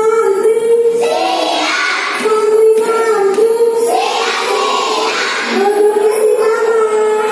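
A group of children singing a song together in unison, in phrases of long held notes.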